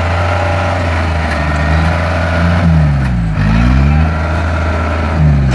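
Diesel engine of a tracked rice combine harvester running steadily, its engine speed dipping and picking up again about three seconds in and dipping once more near the end as the machine works through the soft, boggy field.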